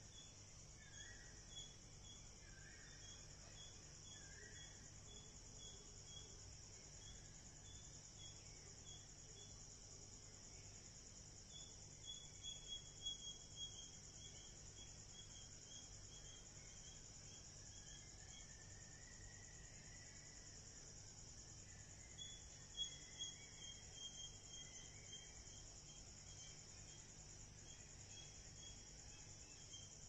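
Faint outdoor insect chorus: a steady high-pitched hiss with a running series of rapid chirping pulses, which grow briefly louder about twelve seconds in and again about twenty-three seconds in.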